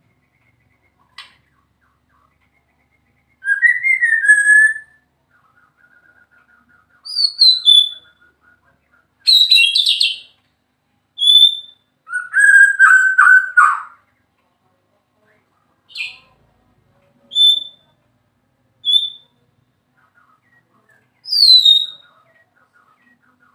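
White-rumped shama (murai batu) singing in short, loud whistled phrases. Some notes slide down in pitch and one phrase is a quick chatter, with pauses of one to two seconds between phrases.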